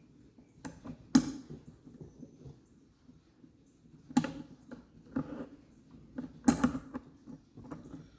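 Adjustable wrenches on a surface cleaner's pressure-line fitting: sharp metal clanks and knocks about a second in, at about four seconds and at six and a half seconds, with quieter creaking and handling in between as the fitting is unscrewed from the swivel.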